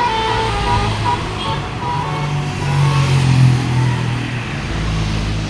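A bus's telolet horn sounding a few tones that break off over the first couple of seconds, then the bus engine running loud as it goes by, loudest about midway.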